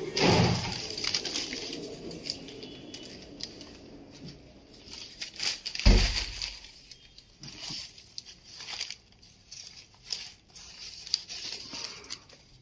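Newspaper rustling and crumpling as it is handled and picked up, in irregular crackles, with one heavy thump about six seconds in.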